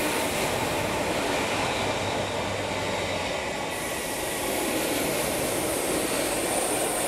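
Electric multiple-unit passenger train running past close by on a curve: a steady rumble of wheels on rail as the carriages go by, with a thin high tone joining a little over halfway through.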